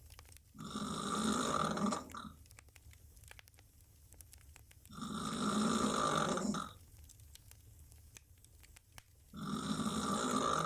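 Woman snoring loudly while lying on her back with her mouth open. Three long snores come about four and a half seconds apart, each lasting about a second and a half.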